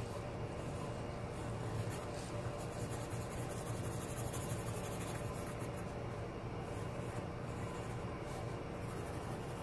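Pencil scratching and rubbing on drawing paper in repeated light sketching strokes, over a steady low hum.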